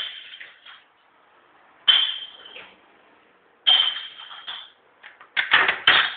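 Three sharp knocks about two seconds apart, each ringing briefly with a high tone, then a fast flurry of louder bangs near the end.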